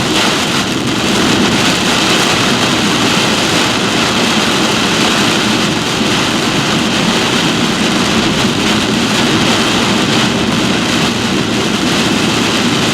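Heavy rain and strong wind of a severe thunderstorm: a loud, steady wash of noise that does not let up.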